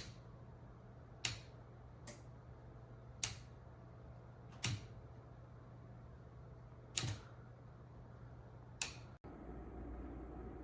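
Wall light switch being flipped off and on, seven sharp clicks one to two seconds apart, toggling a recessed LED retrofit light between its ring nightlight and main light modes. Near the end the clicks stop and a steady low hum follows.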